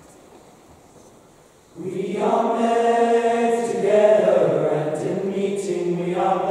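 Quiet hall ambience, then about two seconds in a teenage boys' choir begins singing, several voice parts sounding together in sustained harmony, with crisp 's' consonants.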